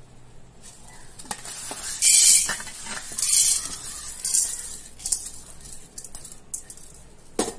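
Dry black peppercorns poured into an aluminium kadai, a loud rattling shower about two seconds in, followed by a few shorter rattles and scrapes in the pan and a sharp clink near the end.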